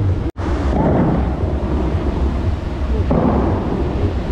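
Show-fountain water jets spraying and crashing down in a loud rushing noise over a low rumble. It swells about a second in and again near the end, and cuts out for an instant just after the start.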